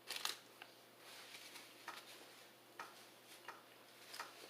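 Faint eating sounds close to the microphone: a short crackle right at the start, then scattered soft mouth clicks.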